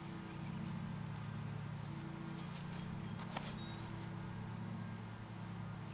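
A steady low engine-like hum, with a few sharp clicks about three to four seconds in.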